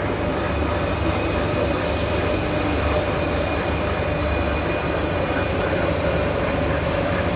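Two-axis auto-indexing milling machine running: a steady mechanical hum with a few constant whining tones over it.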